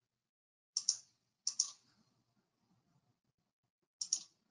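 Sharp clicks from a computer in three quick pairs: one pair about a second in, another half a second later, and a third near the end.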